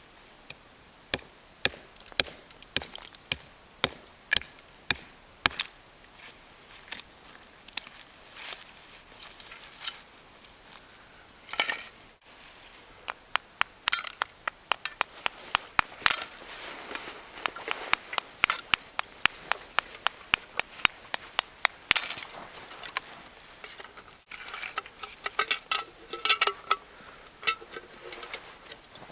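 A hatchet chopping into ice: many sharp strikes, some in quick runs. Near the end, chunks of ice clink against a metal cup.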